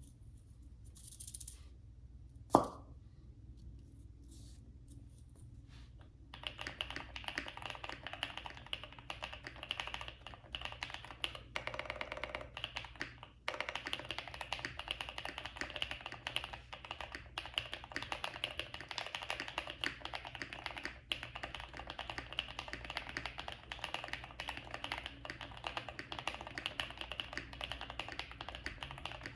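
Custom aluminum Tofu65 mechanical keyboard typed on fast and continuously from about six seconds in, its lubed and filmed NovelKeys Cream switches clacking under GMK keycaps on a polycarbonate plate. Before the typing starts, a single sharp knock about two and a half seconds in is the loudest sound.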